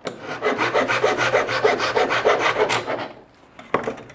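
Handsaw cutting a thin strip of wooden canoe rib stock to length: quick back-and-forth strokes for about three seconds, then it stops, followed by a few light knocks of wood on the bench.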